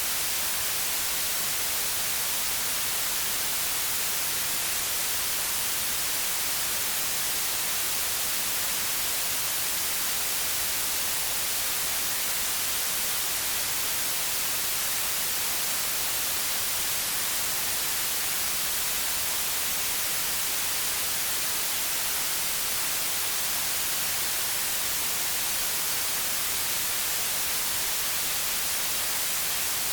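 Steady white noise: an unbroken, even hiss with no changes, its energy weighted toward the high end.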